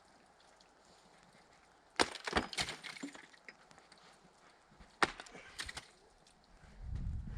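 Icicles being knocked down and breaking: a cluster of sharp cracks of ice about two seconds in, another crack about five seconds in with a few small ticks of falling shards. A low rumble begins near the end.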